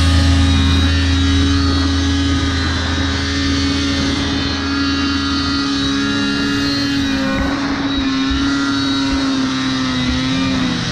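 Arctic Cat Mountain Cat 600's two-stroke twin engine running steadily at speed under the rider, its pitch held almost level as the sled climbs through snow.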